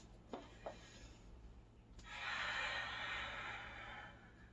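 A person's long breath, about two seconds of airy hiss starting about two seconds in, as the client breathes through the bear-hug back adjustment. There are two faint clicks near the start.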